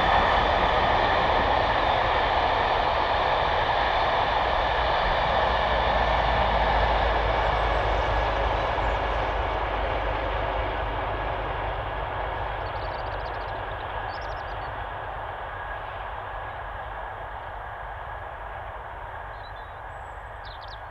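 Steam-hauled train running on the rails, a steady rumble of wheels and coaches that fades gradually as the train draws away. A few faint high chirps come through as it dies down.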